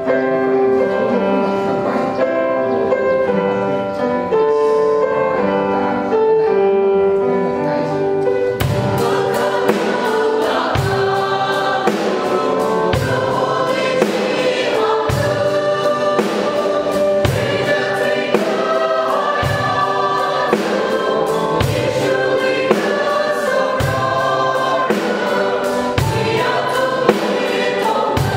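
A mixed church choir singing a hymn in Tangkhul. A drum kit comes in about eight seconds in and plays a steady beat, with a heavy stroke about every two seconds.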